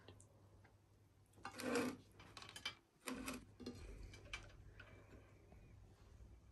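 Metal chopsticks clicking and scraping against a plate as noodles are stirred and lifted, with light clicks throughout and two louder scrapes about one and a half and three seconds in.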